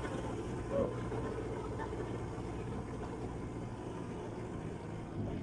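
A 4x4's engine running steadily as it drives over sand dunes, heard from aboard the vehicle, with a brief louder sound just under a second in.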